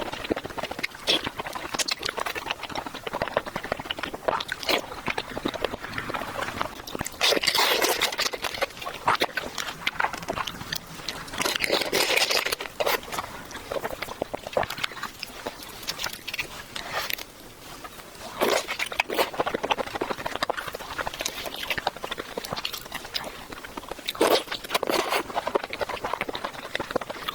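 Close-miked eating sounds: chewing with many small wet clicks and smacks, and several longer, louder stretches, the first about seven seconds in and another about twelve seconds in.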